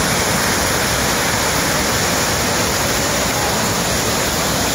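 Water discharging at full force from a dam's outlet gate into a concrete channel: a loud, steady rush of churning water.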